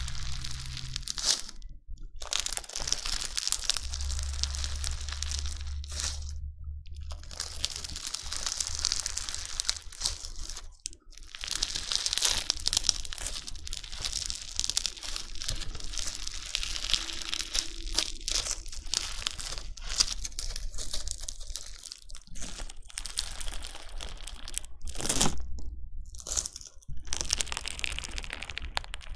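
Crunchy bingsu slime being squished, its beads giving a dense, continuous crackling crunch broken by a few brief pauses.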